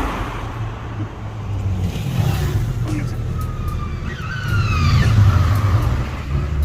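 Motor vehicle running, a steady low engine drone, with a rising whine about four seconds in as it picks up speed.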